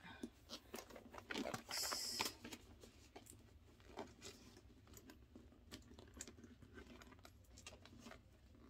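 Faint handling noises of a canvas handbag and its hardware: scattered light clicks and rustles as a small pouch's clip is fitted onto the bag, with a brief scrape about two seconds in.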